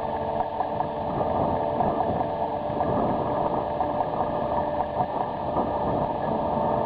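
Container crane machinery running as the headblock is hoisted: a steady mechanical hum with several held tones over a rough rumble.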